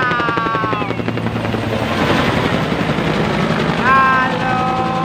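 Huey-type military helicopter flying low overhead. Its two-bladed rotor beats in a steady, rapid chop over a low engine hum.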